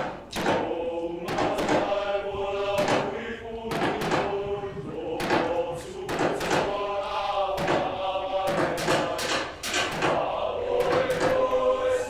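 Group of voices singing a Samoan song together in long sustained phrases, over a steady percussion beat of about two strikes a second.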